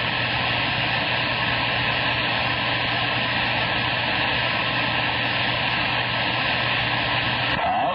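CB radio receiver hissing with static and a low steady hum while the channel is open between transmissions; the hiss breaks off near the end as a voice comes through.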